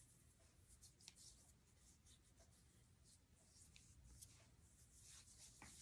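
Near silence with very faint, soft rubbing strokes: fingertips spreading face primer over the skin.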